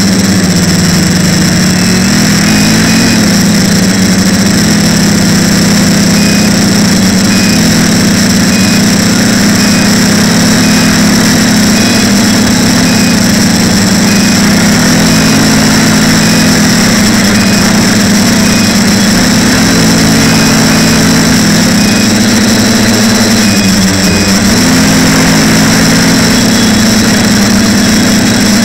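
TBS Discovery quadcopter's brushless motors and propellers buzzing loudly in flight, the hum drifting up and down in pitch as the throttle changes, over a steady high whine.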